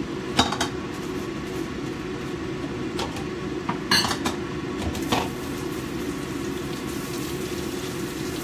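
Kitchenware clinking and knocking a few times, sharpest around four seconds in, over a steady low hum.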